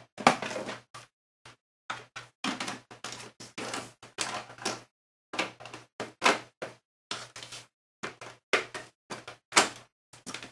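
Side panel of a Compaq Evo D51U desktop computer case being fitted back on and slid shut: a string of irregular clunks, scrapes and rattles, loudest just after the start and again about a second before the end.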